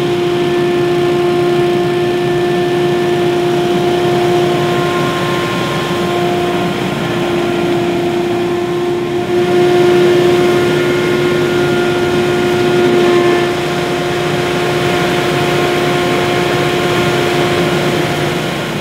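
Hurricane X3 stand-on leaf blower running with its 25 hp Subaru engine, a loud steady whine over a dense rushing noise, a little louder for a few seconds midway.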